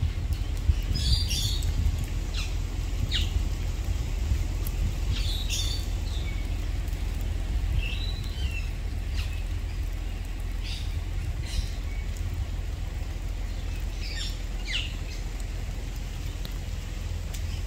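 Birds giving short, high chirps every second or two, a few sliding down in pitch, over a steady low rumble.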